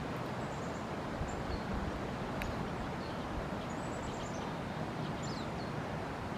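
Steady rushing of the L'Assomption River, with small birds singing short, high, falling trills over it and a single click a little past the middle.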